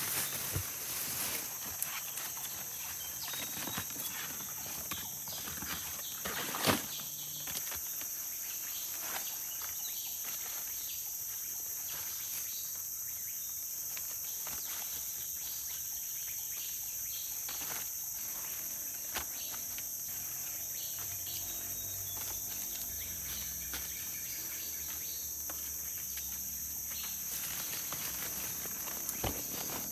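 Steady high-pitched chorus of forest insects, with scattered short knocks and rustles from someone moving and handling things, one louder knock about seven seconds in.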